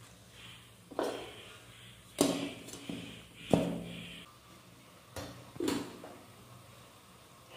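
Aluminium cooking pots and lid being handled: several sharp clanks spread over a few seconds, a couple of them ringing briefly.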